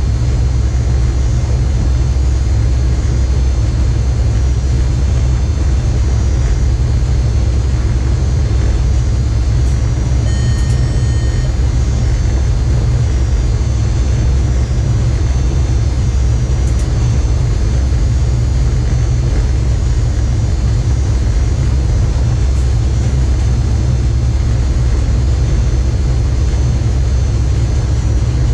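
Electric locomotive cab at line speed: a steady, loud low rumble of the running gear and traction equipment on the rails, with a faint steady high whine above it. About ten seconds in, a short electronic beep of about a second sounds in the cab.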